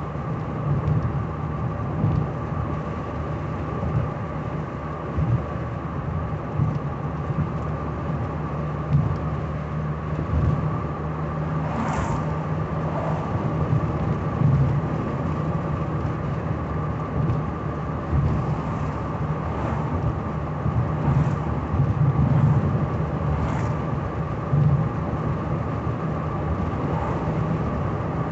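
Inside the cabin of a 1985 Cadillac Cimarron at cruising speed: a steady low drone of engine and tyres, with a steady higher tone above it. A single sharp tick comes about midway.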